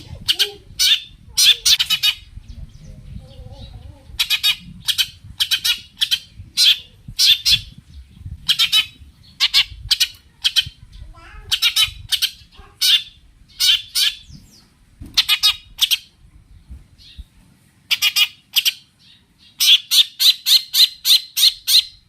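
Long-tailed shrike (cendet) giving harsh, scratchy calls in short clusters, the sound of an agitated, fighting-mood bird. Near the end it breaks into a fast, even run of about four calls a second.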